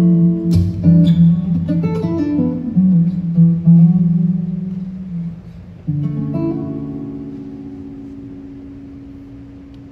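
Acoustic guitar played on its own, without singing: picked and strummed chords for about five seconds, then a chord struck about six seconds in and left to ring and slowly fade.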